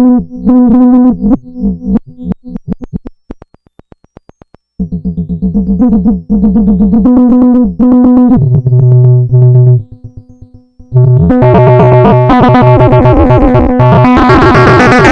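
Arturia MicroBrute analog synthesizer playing a fast sequenced chiptune-style pattern of short buzzy notes. It thins to faint rapid clicks for a moment, comes back with a low bass note, and near the end turns into a harsh noisy wash.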